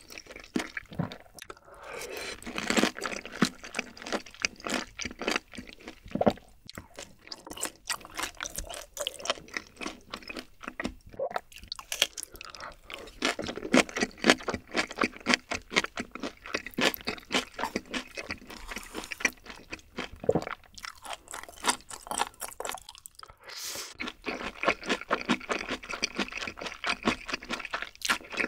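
A person chewing a mouthful of beef large intestine (daechang) close to the microphone: a dense run of small clicks and crunches, with a few brief pauses.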